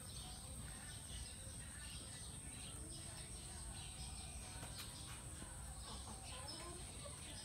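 Faint outdoor background: a steady high-pitched whine with scattered faint chirps over a low rumble.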